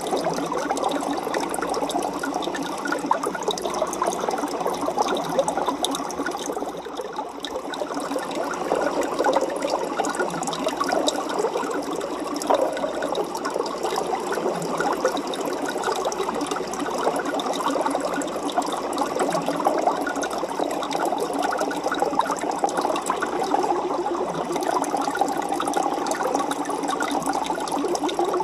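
Aquarium water running and bubbling steadily, dense with small crackling pops.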